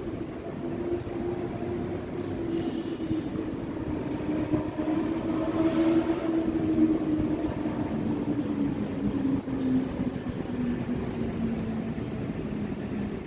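Electric train running at the station: a motor whine that falls slowly in pitch over several seconds, loudest about halfway through, over the steady rumble of the wheels on the track.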